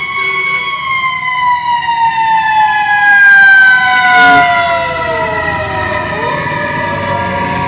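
Several fire truck sirens sounding together. One slowly falls in pitch and is loudest a few seconds in, while the others hold steady tones.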